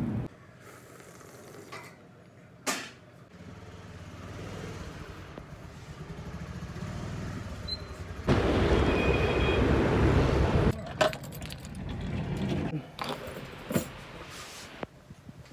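Motor scooter running while being ridden: a low steady hum that builds, then a louder rushing stretch in the middle lasting a couple of seconds. A few sharp clicks stand apart from it.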